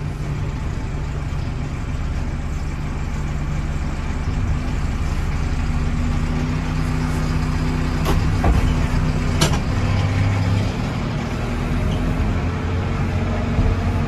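Case 580 Super M backhoe's four-cylinder diesel engine running steadily, heard from inside the cab, its note rising a little about halfway through. Two sharp knocks come about eight and nine and a half seconds in.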